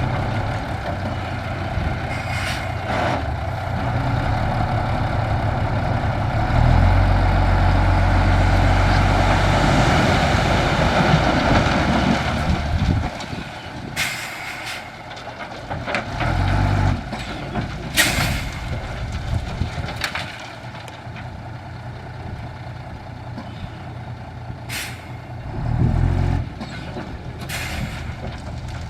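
Heavy dump truck's diesel engine running, louder for several seconds in the first half and then easing off. Several short, sharp air hisses come in the second half.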